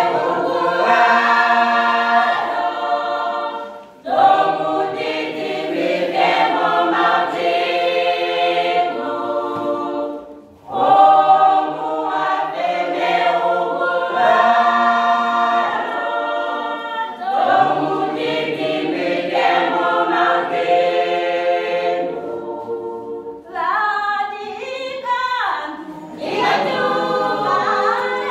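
Youth choir singing a gospel song unaccompanied, several voices together, in long phrases with short breaks about 4 and 10 seconds in.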